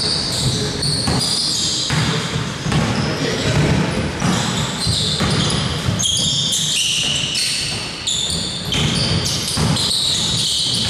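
Basketball game play: the ball bouncing on the court, with many short, high sneaker squeaks as players move.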